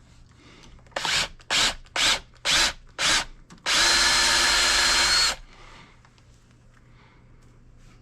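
Electric motor of a powered wire stripper, run in five short bursts and then one steady run of under two seconds with a whine, as short pieces of scrap wire are sent through it.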